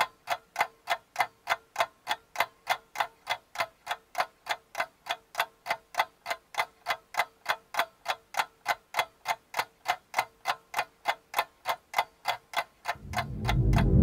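Steady clock-like ticking in the dance's recorded soundtrack, about three and a half ticks a second over a faint held tone. A deep, loud swell of music rises in near the end.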